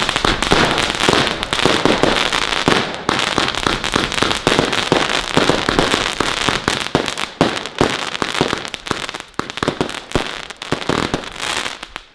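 Rubro Heavy Legend Color Rush, a 120-shot 18 mm firework cake, firing in rapid succession: a dense, continuous run of shots and pops with crackling from the bursting stars.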